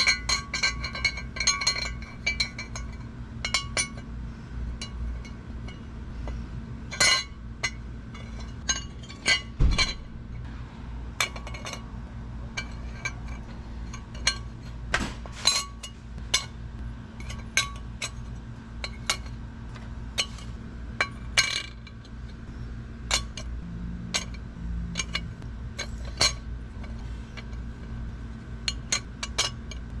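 Antique mortise lock hardware and trim pieces clinking and knocking against each other as they are handled and set down, irregular sharp clinks with a few ringing ones at the start. A steady low hum runs underneath.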